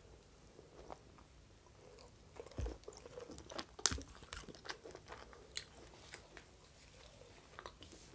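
Close-miked chewing of a crusty toasted-baguette French hot dog, with crisp crunches and small mouth clicks, loudest a little before the middle.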